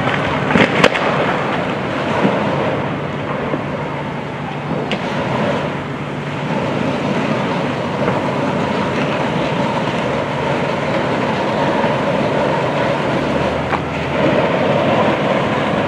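Large structure fire burning: a steady rushing noise, with a few sharp cracks about half a second in and a faint steady whine underneath.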